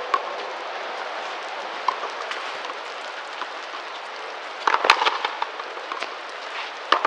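Sharp cracks of a frontenis rally: the rubber ball struck by racquets and smacking against the frontón wall. There are a few scattered hits, with a quick cluster of several about five seconds in, over a steady hiss.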